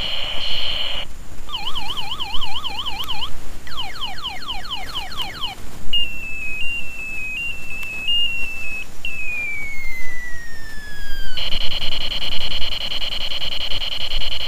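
Battery-powered toy ray gun's electronic sound chip cycling through its effects. A buzzing tone, then a fast warbling siren, then a string of about seven quick falling zaps, then a wobbling beep and a long falling whistle. Near the end the buzzing tone comes back.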